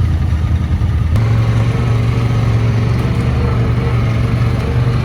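ATV engine running under way with a steady low drone; about a second in the engine note steps up slightly and holds as the throttle is opened a little.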